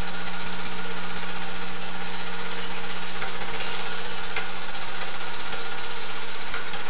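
Super 8 film projector running: a steady motor hum under an even mechanical clatter, with no change in speed.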